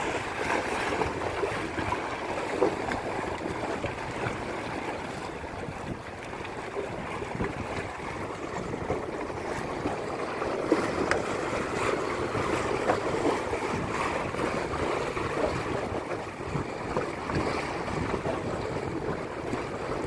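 Small waves washing and splashing against the breakwater rocks, a steady rushing of water, with some wind on the microphone.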